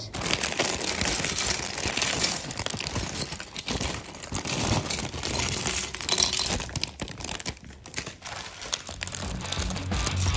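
Clear plastic Lego parts bags crinkling, with loose plastic bricks clicking and rattling against each other as the pieces are handled. Background music with a beat comes in near the end.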